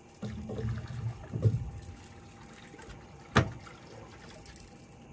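Water sloshing and trickling in uneven swishes, with one sharp knock a little after three seconds in.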